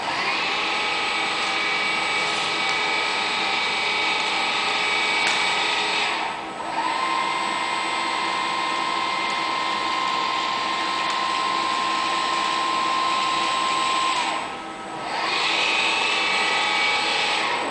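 Fanuc industrial robot arm's servo motors and gear drives whining steadily as the arm moves a tyre. The whine drops away briefly twice, about six and a half and fifteen seconds in, and comes back at a different pitch each time.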